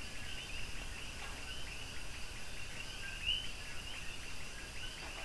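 Faint, high-pitched chirping from small animals in the background: many short chirps repeating several times a second, with one slightly louder a little past the middle, over a low steady hiss.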